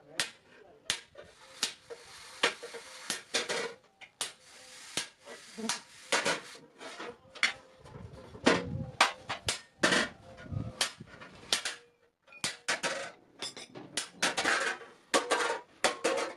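Blacksmith's hammer striking steel on an anvil, forging a bicycle pedal crank: a run of irregular ringing blows, often one or two a second, with a brief pause about twelve seconds in.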